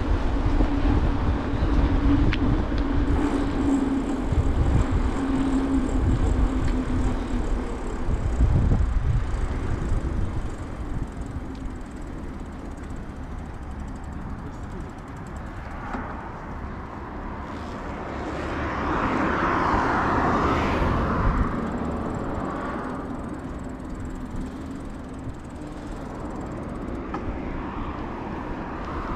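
Bicycle riding, with wind buffeting the microphone and tyres rolling over the pavement, loudest and rumbling over the first several seconds. A louder rush of passing-traffic noise swells and fades about twenty seconds in.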